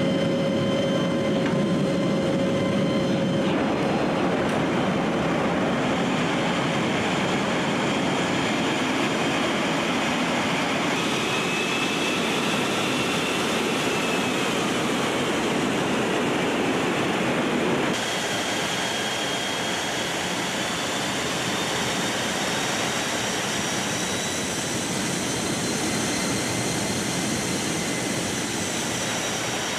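Steady engine and airflow noise inside the cabin of a military transport aircraft in flight, with faint whining tones that drift slowly in pitch. The sound changes abruptly about three and a half seconds in and again about halfway through, a little quieter after the second change.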